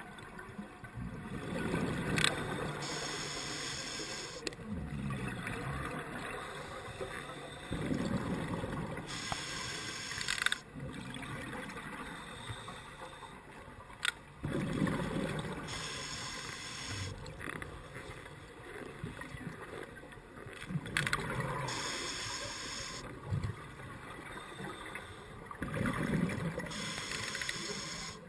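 Scuba diver breathing through a regulator underwater: a hiss of each inhalation alternates with a bubbling rush of exhaled air, about every six seconds, five breaths in all. A few sharp clicks are heard between them.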